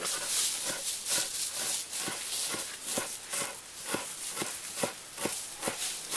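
Kitchen knife chopping fresh green herbs on a wooden cutting board, in an even rhythm of about two chops a second.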